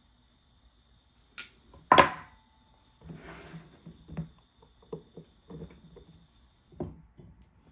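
Handling sounds from a clear plastic storage box on a wooden bench. A sharp click is followed, about two seconds in, by a loud knock as the box is put down. Scattered plastic clicks and rustling follow as blue tubing is fitted into a brass push-fit fitting on the box.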